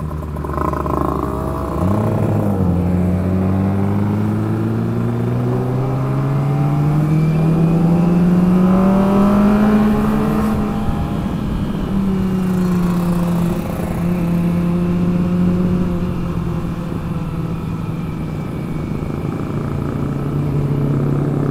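Kawasaki ZX-25R motorcycle's inline-four engine idling, then pulling away about two seconds in. Its note rises steadily for several seconds, drops back, and settles to a steady cruise.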